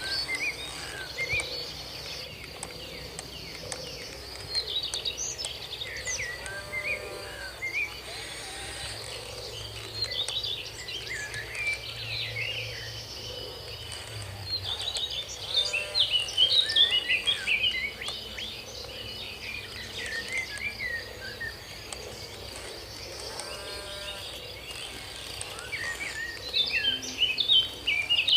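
Outdoor ambience: a steady, high-pitched insect trill with many birds chirping over it in quick spells.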